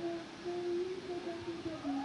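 A person humming a slow tune: a few held notes that step up and down in pitch, with a small swoop near the end.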